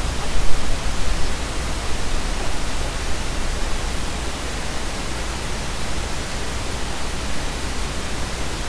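Steady hiss with a low hum underneath: the background noise of the narration microphone and recording chain, with no other sound standing out.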